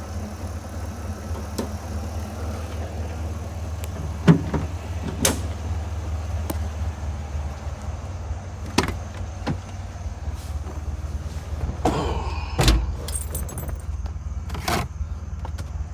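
1994 Chrysler Town & Country minivan engine idling steadily, with scattered clicks and knocks over it, the sharpest about four seconds in, and a heavier low thump about three-quarters of the way through.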